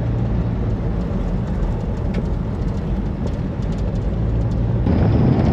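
Four-wheel-drive vehicle driving on a gravel road, heard from inside the cab: a steady engine hum under tyre and road noise. The noise jumps louder a little before the end.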